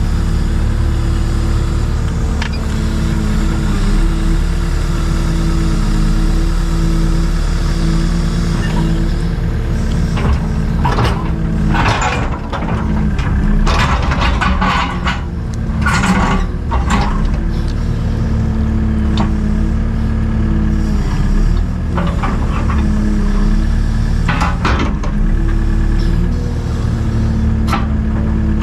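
Takeuchi TB285 excavator's diesel engine running steadily under hydraulic load while it handles rip rap boulders. A run of clanks and scrapes from rock against the bucket comes from about ten to seventeen seconds in, and again near the end.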